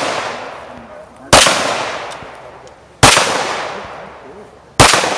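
Handgun shots fired at a slow, even pace: three sharp cracks about a second and a half to two seconds apart, each trailing off in a long echo.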